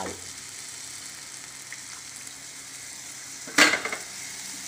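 Coconut paste being poured into a non-stick pan of frying masala, which sizzles steadily. A single sudden loud knock sounds about three and a half seconds in.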